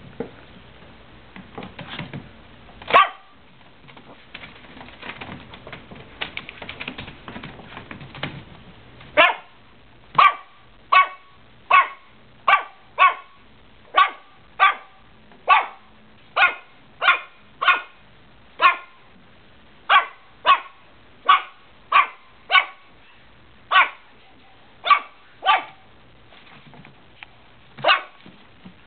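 Chihuahua barking: a long run of sharp single barks, about one and a half a second, starting about nine seconds in, with one more bark near the end. Before the run there is soft scuffling and a single bark.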